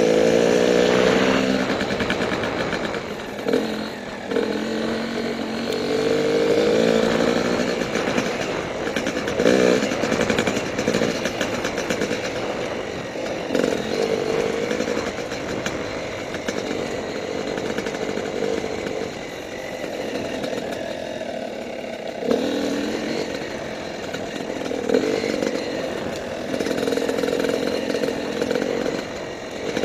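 Yamaha YZ250 single-cylinder two-stroke dirt bike engine under way on the trail. It revs up and eases off again and again as the throttle is worked.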